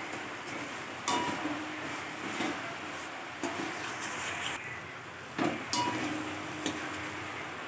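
Spice paste and yogurt sizzling in a wok while a spatula stirs and scrapes it, with several sharp scrapes and knocks of the spatula against the pan. The sound of the masala being fried down until the oil separates.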